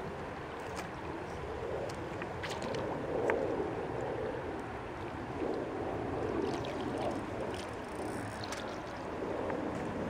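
River water flowing and lapping: a steady wash that swells and eases.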